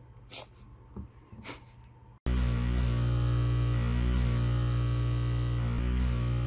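A few faint clicks of an airbrush and primer bottle being handled. About two seconds in, a loud, steady airbrush compressor hum starts, with the hiss of the gravity-feed airbrush spraying primer cutting out and back in twice as the trigger is worked.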